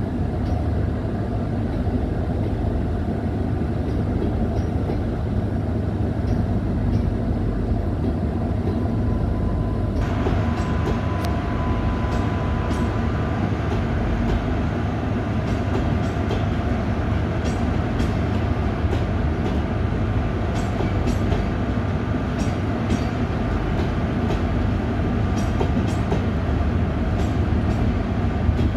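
Rajdhani Express passenger coaches rolling past with a steady rumble of wheels on rail. From about ten seconds in, repeated clicks of the wheels over rail joints are heard.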